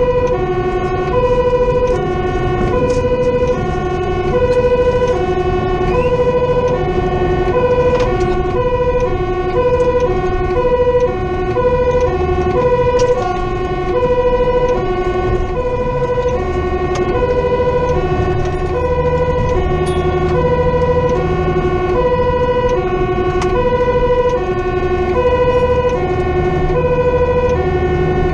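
Fire engine's two-tone siren sounding without a break, alternating evenly between a high and a low note, heard from inside the cab over the truck's engine running.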